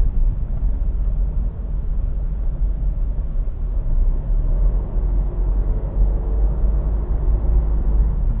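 Steady low rumble of a car creeping forward in heavy traffic, heard from inside the cabin: engine and road noise.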